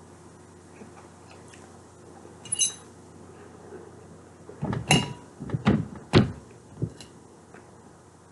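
Eating sounds from a salad meal: a fork clinks against the dish about two and a half seconds in, then a quick run of sharp clicks and knocks from the utensil and chewing close to the microphone.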